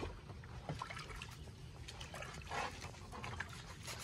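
Brush scrubbing a plastic television back cover in a basin of water, with water sloshing and splashing in irregular strokes, one stronger splash about two and a half seconds in.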